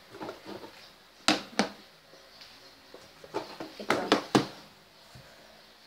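A handful of sharp clicks and knocks from makeup items being handled, including an eyeshadow palette, with the loudest pairs about a second in and about four seconds in.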